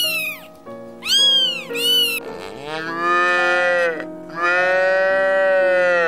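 A domestic cat meowing three times, short calls that rise and fall in pitch, in the first two seconds. It is followed by cattle mooing twice in long, steady calls.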